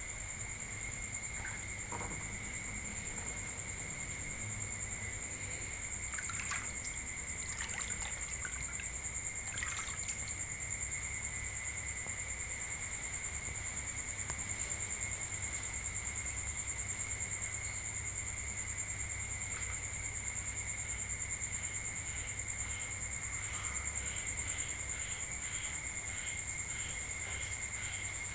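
Night insect chorus: crickets trilling steadily in two high, unbroken tones over a low hum, with a few brief rustles in the first half. Near the end a second chirp joins, repeating about twice a second.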